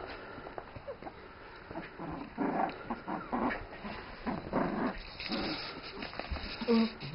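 Young puppies whimpering and squeaking in short cries, several times over, as the mother dog licks them; the loudest cry comes near the end.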